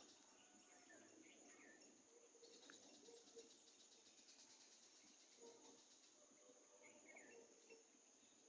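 Faint forest ambience: a steady high insect trill with scattered short bird chirps and calls.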